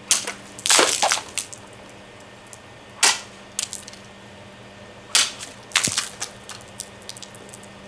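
Shashka sabre slicing through a plastic water bottle on a stand in three sharp cracking cuts about two seconds apart, the loudest about a second in, each followed by lighter ticks and clatter.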